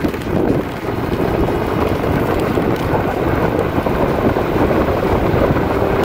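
Steady wind rush buffeting the microphone as a Varla Eagle One dual-motor electric scooter accelerates at full throttle in its top mode, with road noise underneath.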